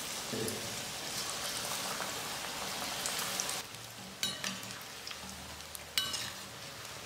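Bonda batter deep-frying in hot oil: a steady crackling sizzle that drops quieter about halfway through, with a couple of light clicks near the end.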